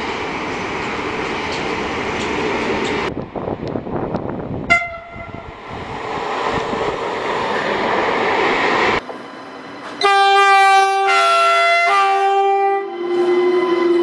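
Passing trains and train horns, cut together from several clips. Rolling train noise runs first, then a brief horn toot about five seconds in. Near the end a loud multi-tone train horn sounds for about three seconds, changing note twice, and runs into another, lower horn note that is held.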